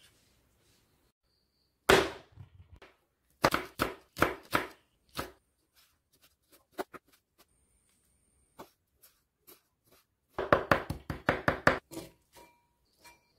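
Kitchen knife chopping food on a wooden cutting board in bursts: one sharp chop about two seconds in, a handful of chops soon after, a few light taps, then a quick run of about a dozen chops near the end.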